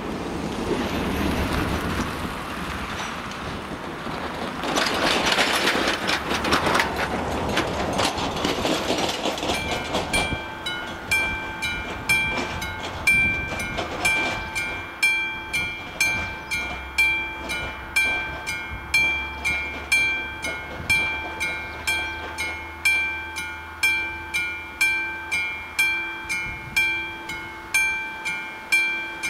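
Passing road traffic, with a car going by close around five to nine seconds in. About ten seconds in, the AŽD 97 level-crossing warning signal's electronic bell starts up, a steady, rhythmic ringing that continues to the end, warning of an approaching train.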